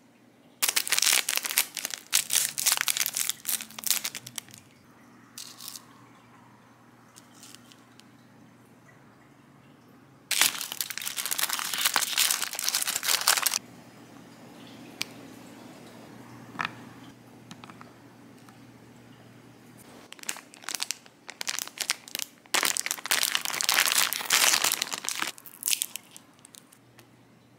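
Plastic and foil snack wrappers crinkling and tearing as they are opened by hand, in three bursts: about a second in, around ten seconds in, and from about twenty seconds in until shortly before the end.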